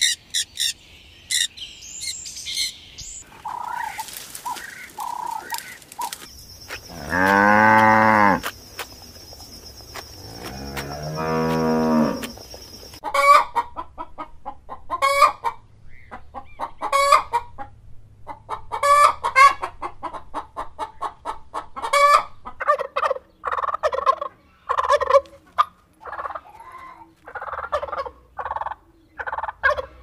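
A run of animal calls: a white cockatoo screeching briefly at the start, then two long moos from cattle, then barred hens clucking over and over through the rest.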